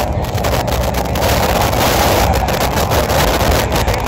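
Steady wind rumble on the microphone mixed with road traffic passing on the street.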